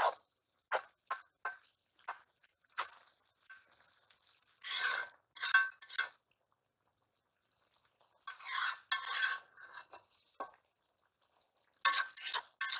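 A metal spatula scraping and clinking against a two-handled metal karahi as spinach is stir-fried. The stirring comes in short bursts with quiet gaps between, the pan ringing briefly at each knock.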